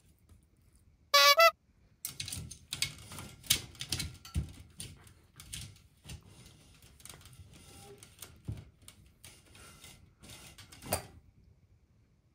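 A Shetland sheepdog tugging at a plush crocodile toy wedged between the bars of a pet fence: a busy run of irregular clicks, taps and rustles as the toy, teeth and paws rub and knock against the bars. One loud, short squeak comes about a second in.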